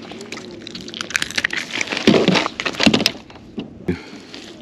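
Hands working a large speckled trout free of a landing net in a kayak: rustling and quick clicks of the net mesh, with a few dull thumps about two and three seconds in.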